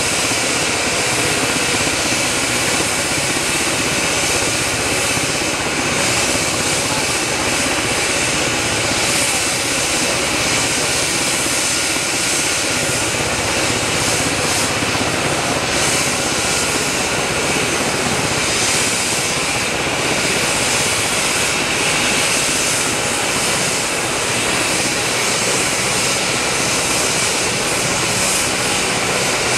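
AgustaWestland AW139 medevac helicopter sitting on the ground with its twin turboshaft engines running and rotors turning: a steady turbine whine and rotor noise that holds level throughout. The engines are kept running during a hot load.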